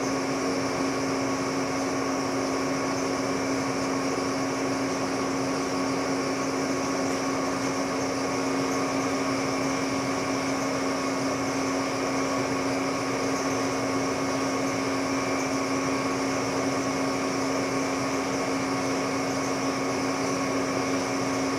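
Steady mechanical hum of a metal lathe's drive motor running, with a constant low tone and no change in level.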